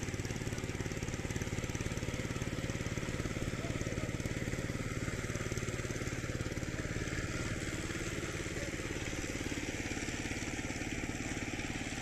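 An engine running steadily at an even speed, with no change in pitch or level.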